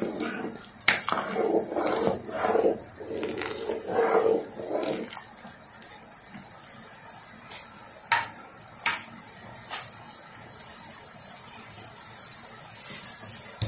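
A spoon stirring egg-drop soup in a pot, clinking and scraping against the pot as the liquid sloshes, for about the first five seconds. After that the soup simmers with a steady, fainter bubbling, broken by a couple of sharp clicks.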